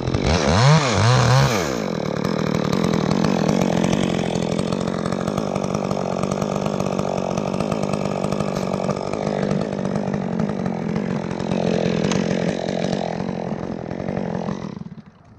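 Chainsaw revved up and down a few times, then held at full throttle through a long cut into a cypress limb, and stopping abruptly near the end.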